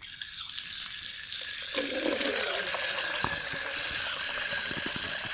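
Water running steadily into a container holding groundnut oil cake, getting louder about two seconds in.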